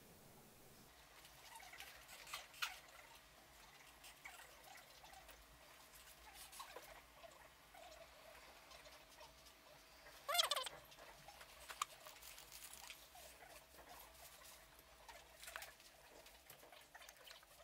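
Faint handling noises from an airsoft gearbox being worked on by hand: scattered light clicks and taps, with one brief louder squeak about ten seconds in, over a faint steady tone.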